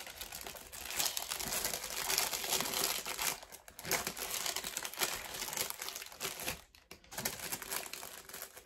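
Thin clear plastic packaging crinkling and rustling as a rolled-up canvas is handled and wrapped in it, with brief pauses about three and a half seconds in and again near seven seconds.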